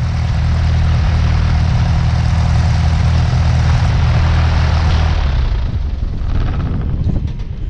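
A light airplane's piston engine idling with its propeller turning, a steady low drone. About five seconds in it is shut down and winds down to a stop.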